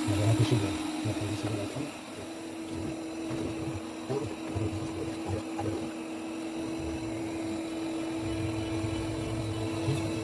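BPMIO B20 robot vacuum and mop combo running while it vacuums and mops a hard floor. Its suction motor gives a steady hum over an uneven low rumble.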